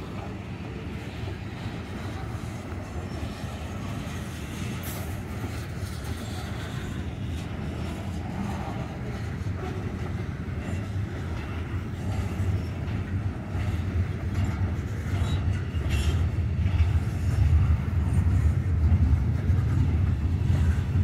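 Freight train of covered hopper cars and gondolas rolling past over a grade crossing: a steady rumble of wheels on rail with an occasional sharp clack. The low rumble grows louder in the last few seconds.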